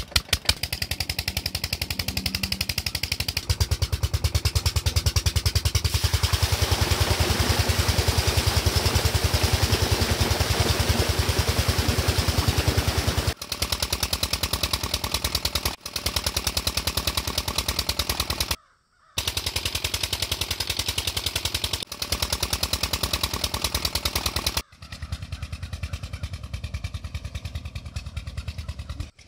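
Single-cylinder Chinese 16 hp diesel engine running with a rapid, even knock of exhaust beats as it belt-drives a tube-well pump lifting irrigation water. The beat drops out briefly about two-thirds of the way through and is fainter near the end.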